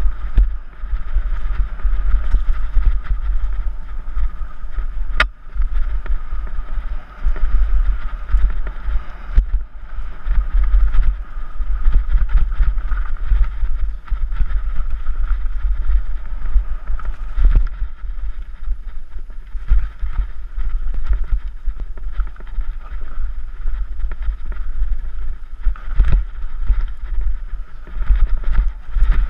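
Mountain bike descending a dirt singletrack, heard through a camera mounted on the rider: heavy wind rumble on the microphone, with the bike rattling and knocking over the rough trail. One sharp click about five seconds in.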